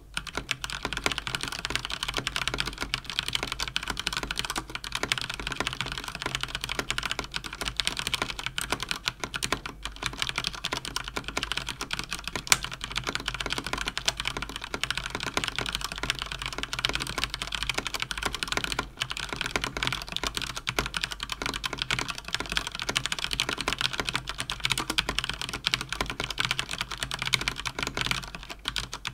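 Fast typing on a Cougar Attack X3 RGB mechanical keyboard with Cherry MX Speed switches: a dense, continuous clatter of keystrokes with a couple of brief pauses.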